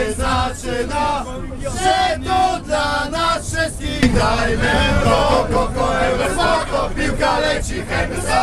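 A crowd of male football fans chanting and singing together inside a moving tram, with the tram's low rumble underneath.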